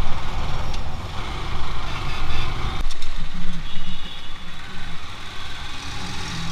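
Motorcycle riding noise picked up by a helmet camera: engine running with wind rumble on the microphone. About three seconds in the sound changes abruptly to a lower-speed engine note in slow traffic.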